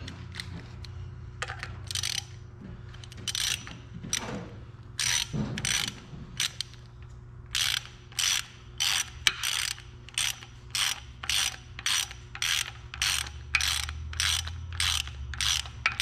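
Hand ratchet clicking in repeated strokes as it turns the bolt of a seal installer, pressing a new camshaft oil seal into a Mazda Miata 1.6 cylinder head. The strokes are irregular at first and settle into a steady rhythm of about two a second about halfway through.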